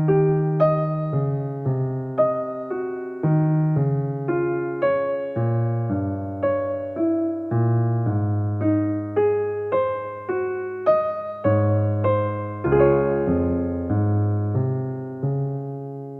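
Background music: a gentle electric piano playing a steady run of notes over sustained chords, ending on a held chord that fades out.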